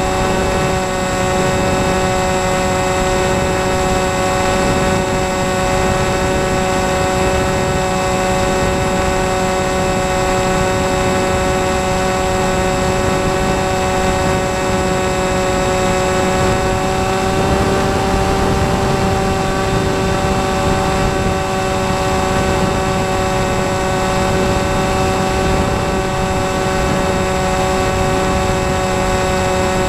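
Small electric brushless outrunner motor and 6x4 propeller of an RC flying wing running at steady throttle: a steady whine over a continuous rush of air. The pitch edges up slightly a little past halfway through.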